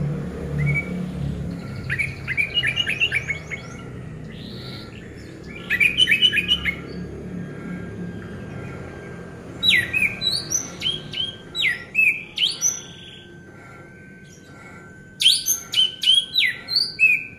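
Orange-headed thrush singing in four bursts of rapid, varied whistled and chattering phrases with short pauses between them. A faint short note repeats evenly in the background.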